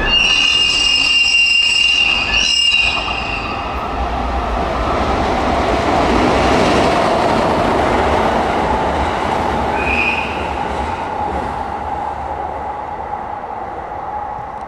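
Train of new E131 series EMU cars, hauled by a locomotive, rolling past with steady wheel-and-rail rumble. A high steady squeal sounds for the first three seconds and stops sharply, and a brief high squeal comes about ten seconds in.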